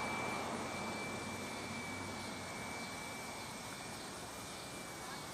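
Small electric RC foam airplane flying overhead: its Turnigy C2830 1100 kV brushless motor spinning a 9x5 propeller gives a steady high whine that dips slightly in pitch near the end, while the sound slowly fades a little.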